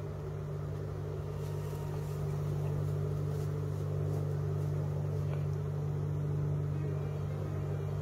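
A mass of honeybees humming steadily in and around their shipping box, a continuous low drone that grows a little louder over the seconds.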